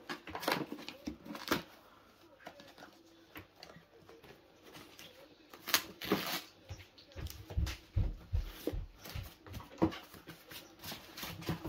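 Small cardboard camera box being closed and wrapped in a white packing sheet: scattered paper and cardboard rustling and tapping, with a run of light thumps against the table in the second half.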